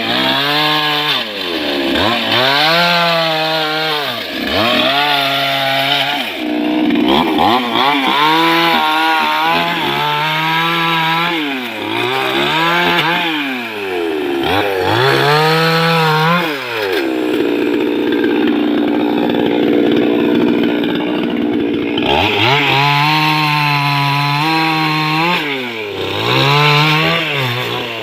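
Chainsaw cutting wood, its engine pitch dipping and recovering again and again as the chain bites and frees. For a few seconds past the middle it holds one steady pitch before the dips resume.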